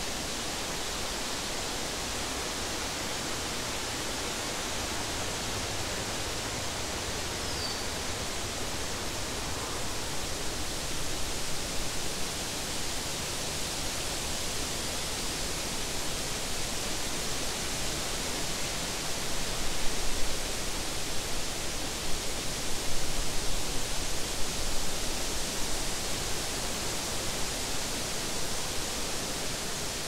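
Wind blowing through tall meadow grass and tree leaves: a steady hiss that swells into louder gusts from about ten seconds in, strongest around two-thirds of the way through.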